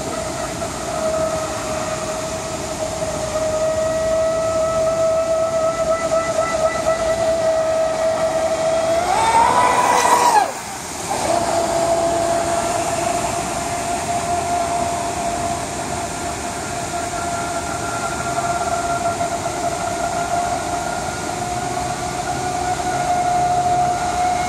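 RC catamaran boat's motor running at speed with a steady high whine. About nine seconds in the whine rises in pitch, cuts out briefly, then comes back steady.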